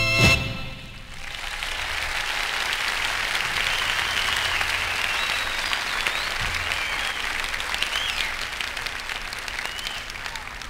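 A concert audience applauding, cheering and whistling as the band's final chord cuts off just after the start, at the end of a live recording.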